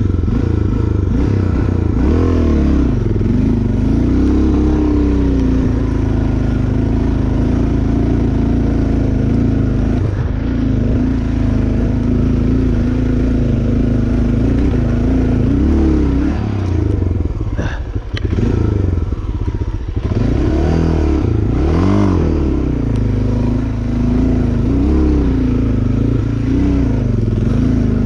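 A vehicle engine running hard under load while attempting to climb a slope, its pitch repeatedly rising and falling as it revs, with some clattering and a few sharp clicks near the middle.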